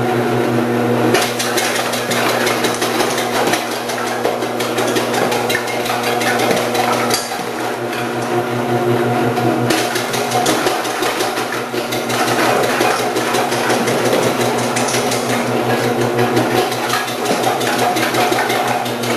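Omcan HLC 300 vegetable processor's electric motor running with a steady hum while its 8 mm disc cuts carrots, the blade chattering rapidly through them.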